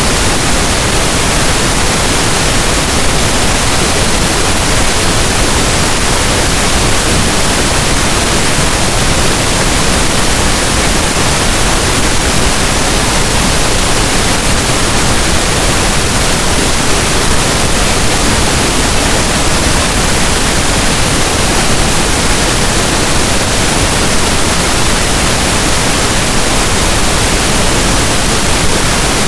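Loud, steady pink noise: an even, unchanging hiss with no tones or breaks.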